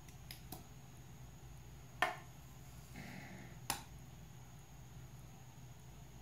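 A few small, sharp clicks from handling a liquid eyeliner pen: two faint ones at the start, a louder one about two seconds in and another near four seconds, over a faint steady hum.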